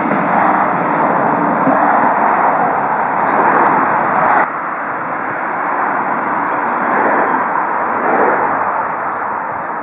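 Railway carriages rolling away along the track, a steady rushing rumble that cuts off abruptly about four and a half seconds in. A softer steady noise follows and slowly fades.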